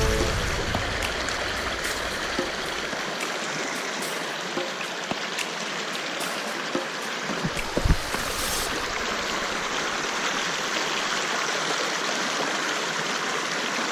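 Stream water running over rocks, a steady rushing, with a brief thump about eight seconds in.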